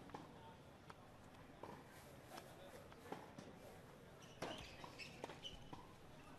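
Faint tennis sounds: a tennis ball bounced several times on a hard court, about one bounce every three-quarters of a second, then the serve struck about four and a half seconds in, followed by a few faint hits as the rally starts.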